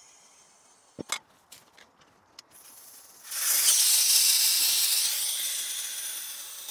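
A few sharp clicks, then about three seconds in a loud hiss of compressed air starts suddenly and slowly fades: air going into the motorcycle tire to reinflate it after its bead was broken.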